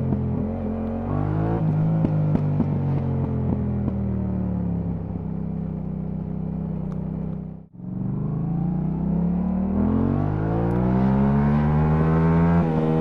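Yamaha MT-07's parallel-twin engine through an Akrapovič titanium exhaust while riding. The revs fall for several seconds with sharp crackles from the exhaust, and the sound cuts out for a moment about halfway. Then the revs climb steadily under acceleration and break at a gear change near the end.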